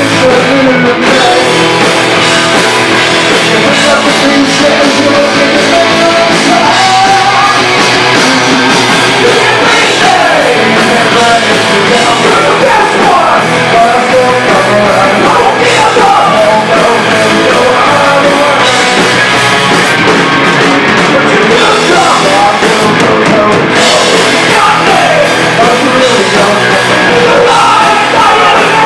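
Rock band playing live: electric guitars, bass guitar and drums, loud and continuous, with singing.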